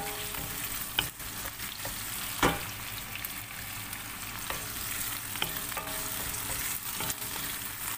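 Chicken pieces sizzling in oil in a wok as a wooden spoon stirs them, with a few sharp knocks of the spoon against the pan, the loudest about two and a half seconds in.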